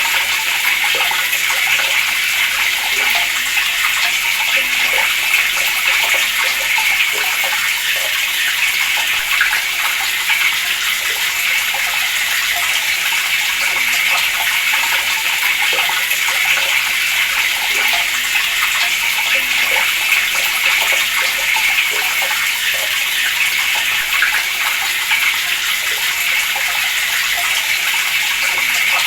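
Water running steadily from a tap, a constant splashing stream with no let-up.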